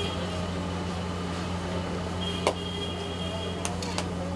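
Jalebis sizzling in hot oil in a large iron kadai, with metal tongs clinking against the pan: one sharp clink about halfway and two lighter ones near the end. A steady low hum runs underneath.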